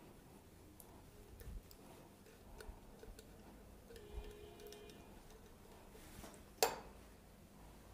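Faint ticks and clinks of ice against a steel cocktail shaker and glass as a mango mocktail is strained in a thin stream into tall glasses of ice, with one sharper clink near the end.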